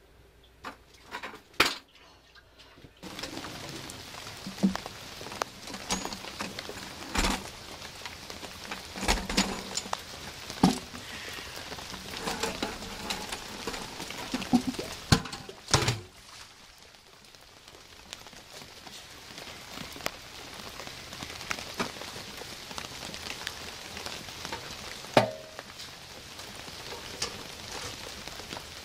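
Rain falling steadily, with scattered knocks and clunks as a heavy wet-vacuum canister on a wheeled dolly is moved and handled. The rain starts about three seconds in, after a few sharp knocks in a quieter stretch.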